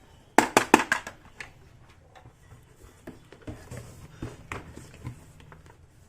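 Small toy kitchen pieces being handled: a quick run of sharp clicks and clatters about half a second in, then scattered lighter taps and knocks.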